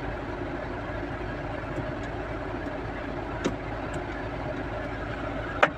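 Tata Nexon AC blower running steadily with the engine idling, with two sharp clicks about three and a half and five and a half seconds in, the second louder. It is the blower noise heard when the temperature is set, which the mechanic traces to the temperature flap inside the blower catching on the plastic body of the AC thermostat sensor as it opens and closes.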